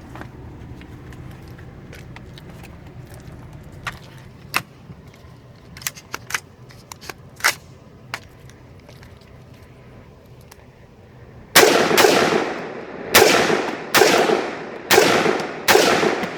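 Suppressed 5.56 MK18 short-barrelled rifle fired six times in a quick, uneven string, each shot a sharp supersonic crack followed by a trailing echo. Before the string, several small sharp clicks are heard.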